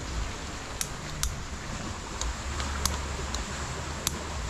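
Lumps of charcoal clicking against each other and a metal bowl as they are set in by hand, a handful of light, separate clicks over a steady wind rumble on the microphone.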